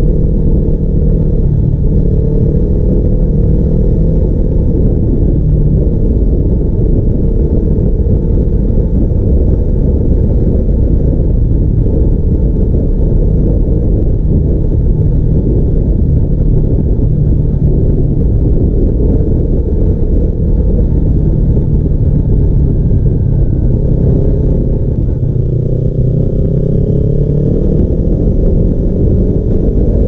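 Kawasaki Ninja 300's parallel-twin engine through a custom aftermarket exhaust, heard from the rider's seat while riding at a fairly steady throttle. Over the last few seconds the engine pitch rises as the bike accelerates.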